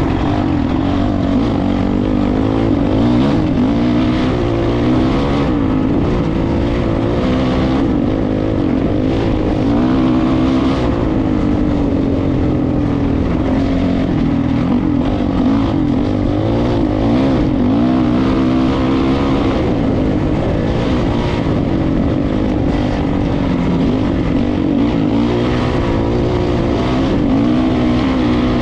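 An engine running steadily at a fairly constant speed, its pitch wavering slightly up and down.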